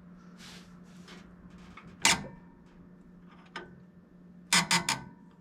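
Sharp metallic clicks and taps of hand tools on the carburetor fittings as a leaking fuel connection is tightened: one loud click about two seconds in, a lighter one later, and a quick run of three near the end, over a steady low hum.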